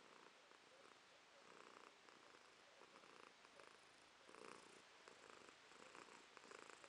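Domestic cat purring faintly and steadily, the purr swelling and easing in a repeated rhythm about once a second.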